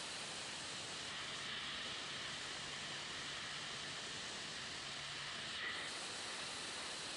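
Steady, even hiss with a faint low hum.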